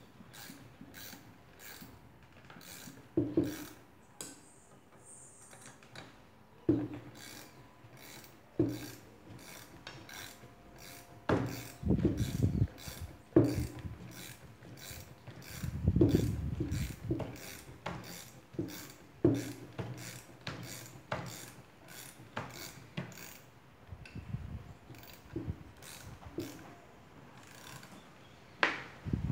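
Ratchet wrench clicking at about two clicks a second as the strut's center nut is worked loose, with louder metal knocks now and then.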